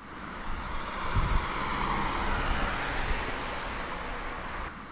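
Sound effect of a motor vehicle driving past: a rushing noise with a faint low engine hum that swells over the first second or two, then slowly fades away.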